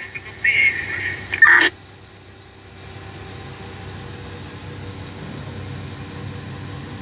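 Mining haul truck's diesel engine running, heard from inside the cab, slowly growing louder about three seconds in as the truck moves off. Near the start, two brief bursts from the two-way radio end in a squelch click.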